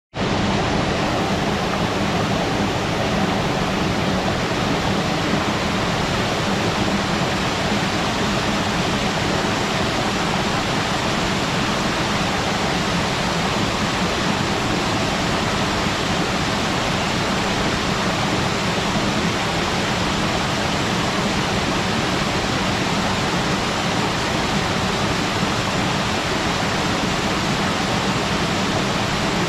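Waterfall pouring steadily: a constant, even rush of falling water with no breaks or changes.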